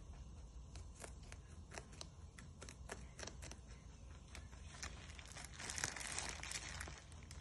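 A rabbit biting into a celery stalk: a run of sharp crunches, about three a second, in the first half. Near the end a plastic bag crinkles loudly for about two seconds.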